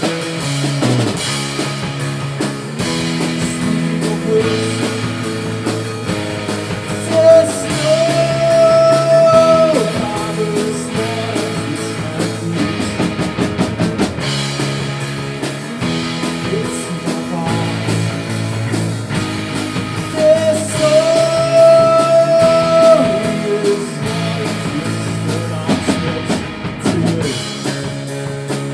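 Rock band playing: electric guitar, electric bass and drum kit. A long held melody note comes twice, about seven seconds in and again about twenty seconds in.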